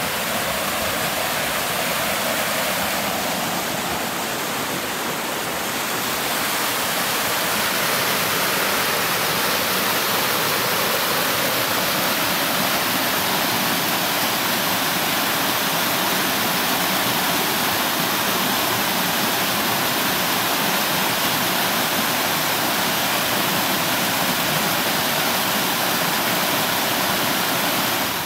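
Waterfall on a mountain stream: a steady, loud rush of falling water that grows a little louder about seven seconds in.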